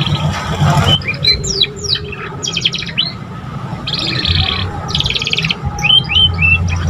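Young domestic canary practising its song: fast trills of rapidly repeated notes broken by short rising and falling chirps, over a steady low hum.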